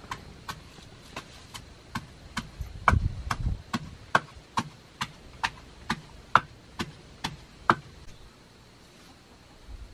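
Wooden pestle pounding in a hollowed-log wooden mortar, crushing ingredients with sharp, regular knocks a little over two a second. The pounding stops about three-quarters of the way through.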